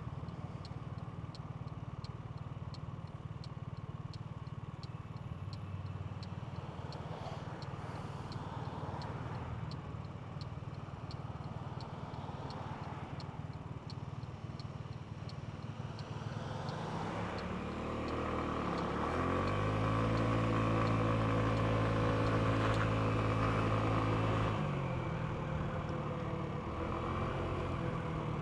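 Genuine Buddy 125 scooter's 125 cc four-stroke single running under way, with wind rush. About two-thirds of the way in the engine note rises and holds louder for several seconds as it accelerates, then drops back near the end.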